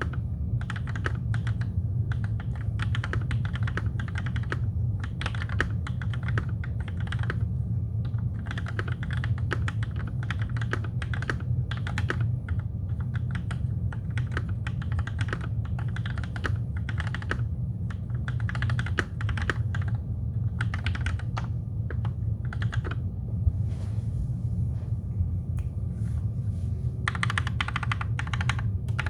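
Typing on a TKC1800 mechanical keyboard with lubed Gateron Black linear switches on 68 g springs and DSA keycaps. The keystrokes come in quick bursts with short pauses, over a steady low hum.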